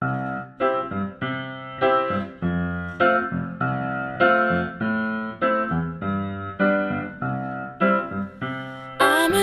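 Background music: a piano introduction of struck chords, each note fading, with a singing voice coming in near the end.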